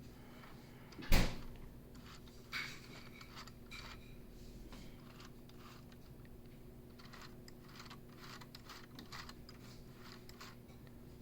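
Plastic clicks and rattles from a LEGO Technic model being handled and turned, with one sharp knock about a second in and a lighter one shortly after, then scattered faint clicks.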